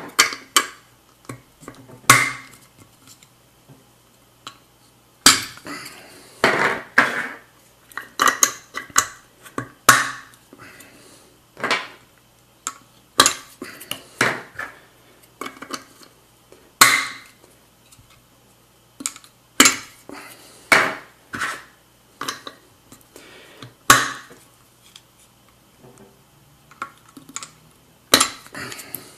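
A center cap clicking and knocking against a Mugen CF-48 aluminium wheel's center bore as it is handled and pressed in to check its fit: irregular sharp clicks and clinks with short scrapes, some single and some in quick runs.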